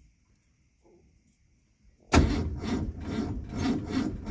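Starter motor cranking a heat-soaked 1982 Ford Mustang GT's 5.0 V8, starting about halfway in with an even chug of about four compression strokes a second: a warm, heat-soaked restart, the condition in which this car has been starting hard.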